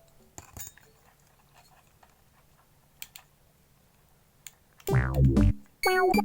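Background music: a few faint clicks, then about five seconds in a loud tone sliding down in pitch, followed by electronic keyboard notes.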